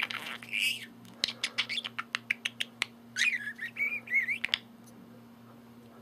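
Pet budgerigar chattering in a wavering, warbled chirp, broken by a quick run of about a dozen sharp clicks, then a second stretch of warbling chatter about three seconds in.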